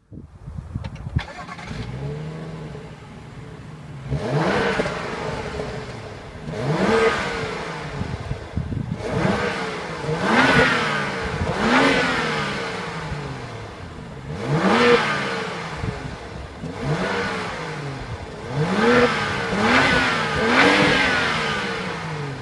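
BMW 535i's 3.0-litre twin-turbo inline-six starting up and settling into idle, then revved in a series of short blips about every two seconds, each rising in pitch and falling back to idle, heard from behind the car at the exhaust tips.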